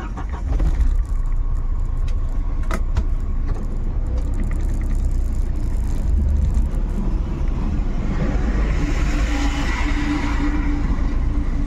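Mahindra Thar driving, heard from inside its soft-top cabin: a steady low engine and road rumble, with a few light knocks in the first few seconds. A rushing noise swells for a couple of seconds near the end.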